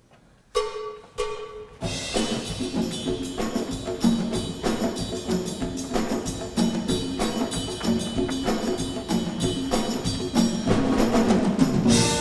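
Live show-choir band playing an upbeat instrumental passage: two short accented hits about half a second apart, then drums and percussion come in with the full band on a quick, steady beat that grows a little louder near the end.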